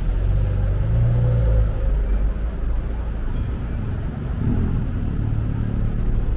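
City street traffic, with a motor vehicle's engine rumbling close by and a steady low hum.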